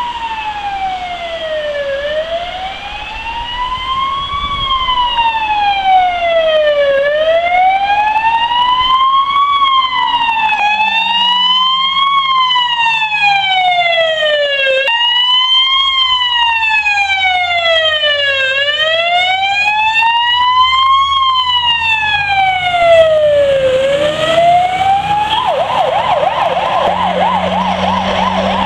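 Fire engine sirens in a slow wail, sweeping up and down about every five seconds. A little before the end they switch to a fast yelp. The low rumble of the trucks' diesel engines comes in during the second half.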